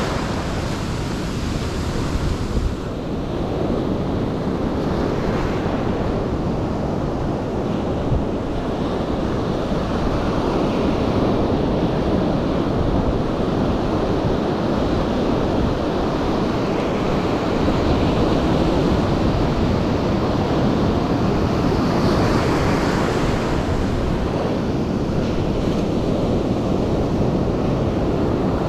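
Ocean surf breaking and washing up a sandy beach in a steady, loud rush, with wind buffeting the microphone. The wave noise swells brighter near the start and again about three-quarters of the way through as breakers come in.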